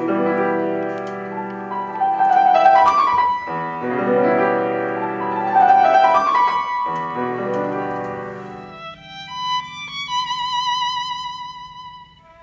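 Steinway grand piano playing full chords, with two quick rising figures. About nine seconds in the piano stops and a violin holds one long note with vibrato over a low sustained drone.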